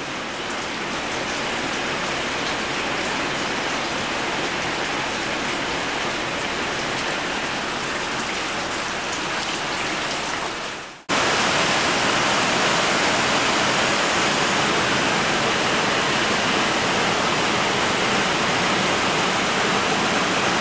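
Steady rain falling, an even hiss; about halfway through it cuts off abruptly and resumes slightly louder.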